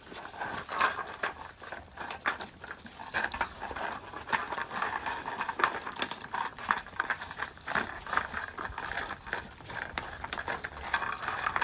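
A litter of young Labrador puppies eating from food bowls: a quick, irregular stream of small clicks and clatters from chewing, lapping and bowls knocking about.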